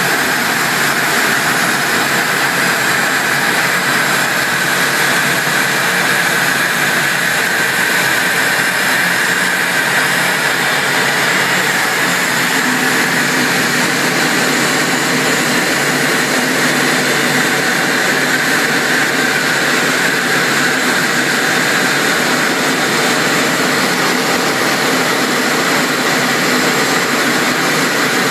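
Steady jet noise inside the rear cockpit of a Eurofighter Typhoon in flight: its twin Eurojet EJ200 turbofans and the rush of air, an even hiss. A deeper hum joins a little under halfway through.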